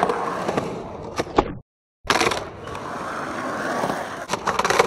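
Skateboard wheels rolling on concrete with a few sharp clacks from the board. The sound drops out for a moment about a second and a half in, picks up again, and a quick run of clacks comes near the end.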